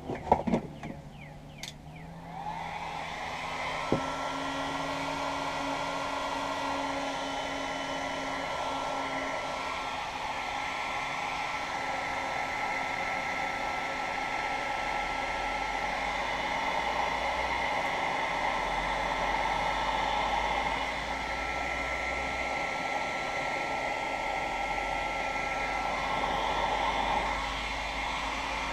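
DeWalt heat gun switched on about two seconds in and blowing steadily, with a faint whine from its fan motor, shrinking heat-shrink tubing over a crimped electrical cable connector.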